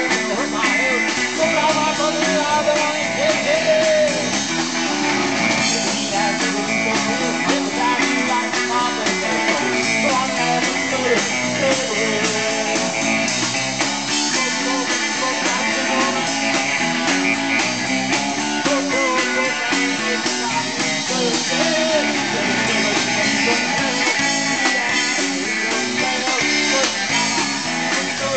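Live rock band playing electric guitars over a drum kit, loud and without a break.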